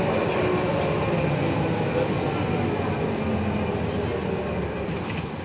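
Ikarus 280.26 articulated bus driving, its diesel engine and running gear droning steadily, heard from inside the passenger cabin. The drone eases a little near the end.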